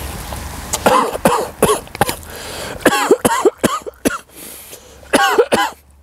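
A man coughing and spluttering in three bouts, choking on a mouthful of rice with a lump of wasabi in it.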